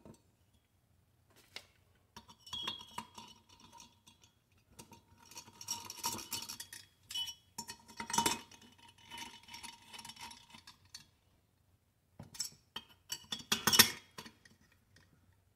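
Scattered light metal-on-metal clinks and scrapes, some ringing briefly, as a freshly decked Stihl 031 chainsaw cylinder is fitted back on its crankcase and its bolts are turned in with a hex key. The loudest clinks come about 8 and 14 seconds in.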